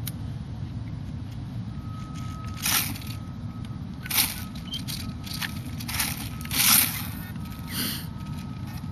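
Dry leaves and pine needles crunching in about five short bursts, the loudest a little before the end, over a steady low rumble. A faint thin whine comes and goes.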